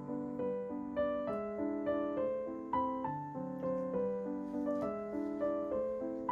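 Background piano music: a gentle melody over chords, notes changing about twice a second.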